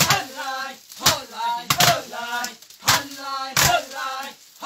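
Wooden sticks beating a heap of dried maize cobs to thresh the kernels off, in sharp repeated strikes about once or twice a second. Voices sing or chant in time with the strokes between the strikes.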